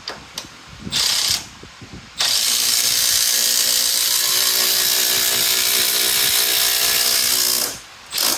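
Cordless power driver driving a long structural screw into 4x4 lumber: a short trigger pull, then a steady motor whine for about five and a half seconds as the screw goes in, and another short burst near the end.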